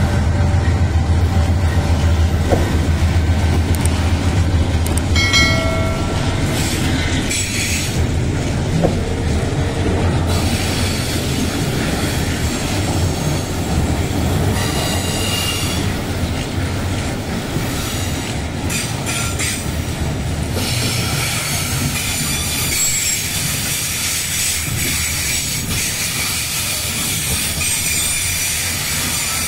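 Diesel freight train passing close by. The low rumble of its trailing locomotive's engine eases over the first few seconds and gives way to the steady rolling rumble and clatter of loaded flatcars. Wheels squeal on the rails several times, in high ringing tones that come and go.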